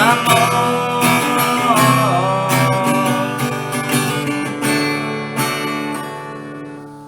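Acoustic guitar strummed through an instrumental break between sung verses, with a held melody note that bends down and back about two seconds in. The playing gets quieter toward the end.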